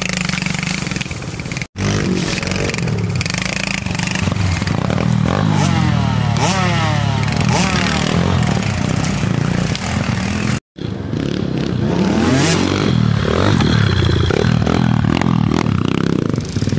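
Kawasaki KLX110 pit bike's small single-cylinder four-stroke engine revving up and down while being ridden through brush. The sound drops out for an instant twice, a little under 2 seconds in and about 11 seconds in.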